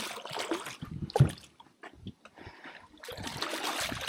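Water splashing and dripping around the boat, with scattered small knocks and one louder knock about a second in, then a steady hiss near the end.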